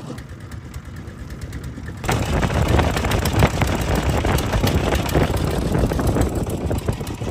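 Wooden river boat's inboard engine running with a rough, knocking chug, jumping much louder about two seconds in.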